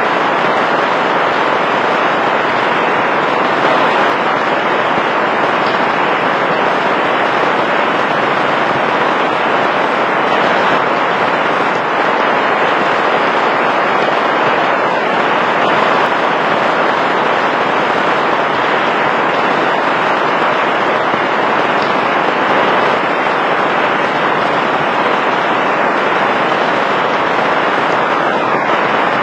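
Heavy rain falling steadily, a loud, even hiss with no let-up.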